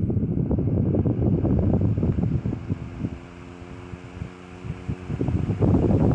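1920 Century 10-inch oscillating desk fan with a brass blade running on high, its air blast buffeting the microphone. The rush of air drops for about two seconds in the middle as the head sweeps away, leaving the motor's steady hum, then returns strongly near the end.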